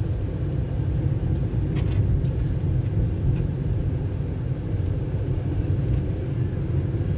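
Steady low rumble of a car being driven, heard from inside the cabin: engine and tyre noise on a paved road.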